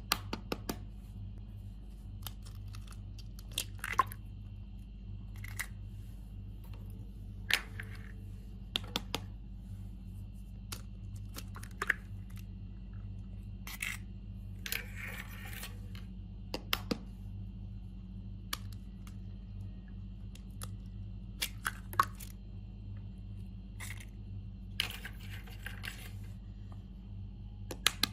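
Eggs being cracked into a mixing bowl: scattered sharp taps of eggshell and two short crackling stretches as shells are pulled apart, over a steady low hum.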